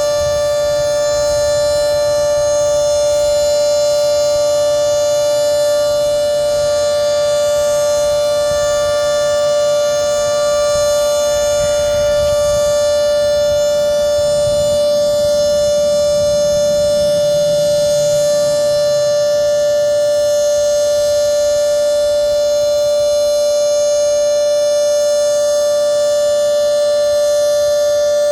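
Federal Signal 2T22B two-tone siren with 10/12-port rotors and its top intake blocked, sounding its steady Alert signal: a held chord of two pitches that neither rises nor falls.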